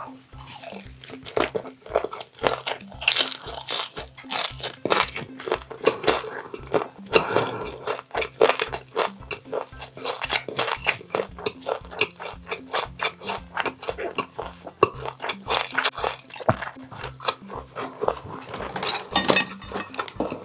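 Close-miked chewing and biting of boiled, roe-filled baby octopus (webfoot octopus), with frequent wet, crunchy smacks. Background music with a steady beat of about two pulses a second runs underneath.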